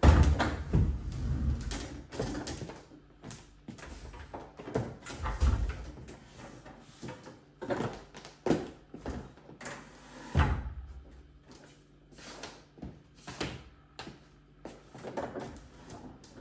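Clunks, knocks and rattles of a folding treadmill being handled as its stuck, upright deck is worked loose and lowered. The loudest thumps come right at the start, about five seconds in, and about ten seconds in.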